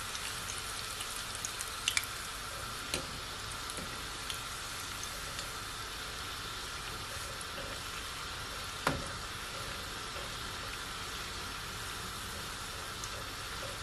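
Ripe plantain pieces deep-frying in vegetable oil, a steady bubbling sizzle as they turn golden, with a few short clicks, the loudest about nine seconds in.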